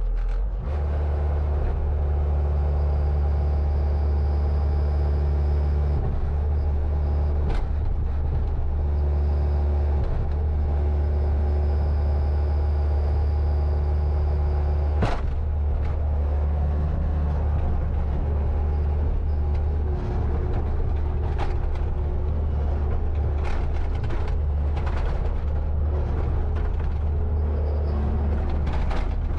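Bobcat T590 compact track loader's 66 hp Tier 4 diesel engine running steadily, with a few sharp knocks or clanks now and then.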